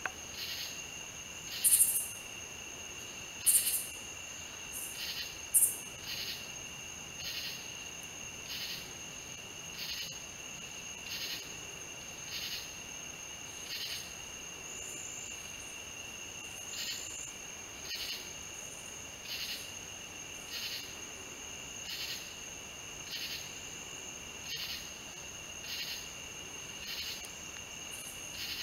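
Chorus of calling insects: a steady high-pitched trill runs through, with a short chirp repeating about every second and a bit. Three louder chirps come in the first six seconds.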